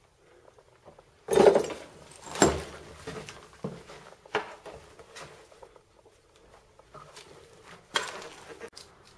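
Footsteps and scuffs on rubble and debris, with a few louder knocks and scrapes, the loudest about a second in, another a second later, and one near the end.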